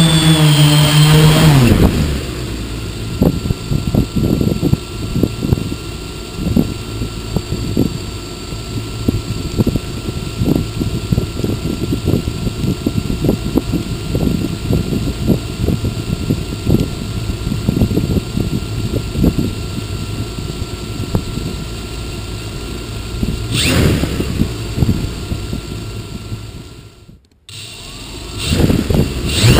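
A hexacopter's electric motors whine down and stop as it settles into the grass about two seconds in. It then sits on the ground with wind and grass crackling irregularly against the microphone, and a faint steady whine runs through it. Near the end the motors spool back up to a rising whine for takeoff.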